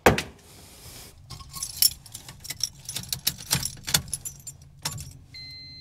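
Car keys jangling and clicking in a hand inside a Honda Civic, after a sharp knock at the very start. Near the end a steady electronic beep sounds from the car.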